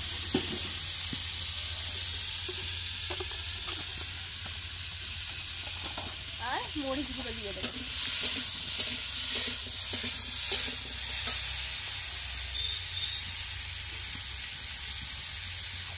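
Curry masala sizzling in hot oil in a pan as it is sautéed (the kosha stage) and stirred, with a steady sizzle throughout. The spatula clicks and scrapes against the pan several times from about eight to eleven seconds in.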